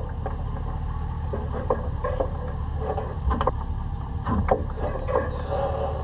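Pickup truck engine running low and steady as it slowly tows a portable sawmill, with scattered knocks and clunks throughout.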